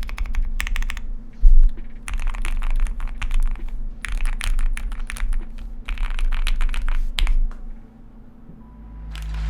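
QK100 mechanical keyboard with stock Gateron Oil King switches being typed on in quick runs of keystrokes with short pauses between them. The typing stops about two seconds before the end.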